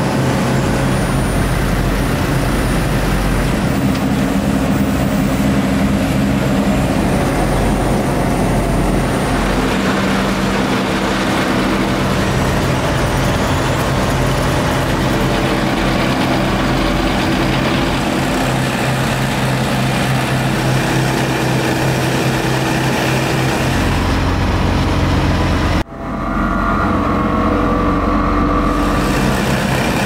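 Diesel engines of road-paving machines, an asphalt paver among them, running in a steady drone. It cuts out for an instant near the end and comes back with a different tone.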